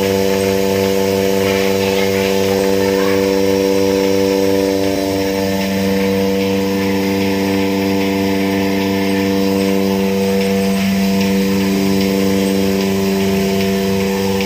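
Milking machine vacuum pump running steadily: an even mechanical hum with a regular low pulsing, drawing vacuum on the milk line.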